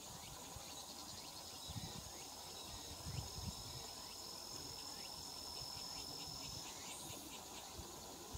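Insects trilling in a summer field: one high, even tone that starts about a second in and stops about two-thirds of the way through, over a fainter, higher steady trill, with short repeated chirps and low rumbles.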